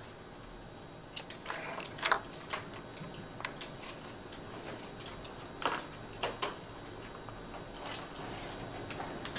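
Scattered short scrapes and rustles of drawing tools being handled on paper over quiet room tone, the loudest about two seconds in and again near six seconds.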